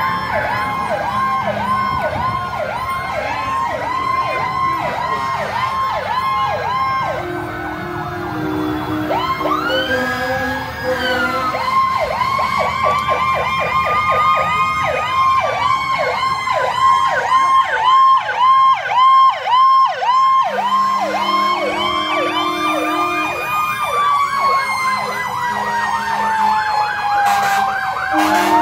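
Several fire-truck sirens sounding together: a fast yelp warbling over slow, long rising-and-falling wails. Low steady horn blasts sound about a third of the way in and again past two-thirds.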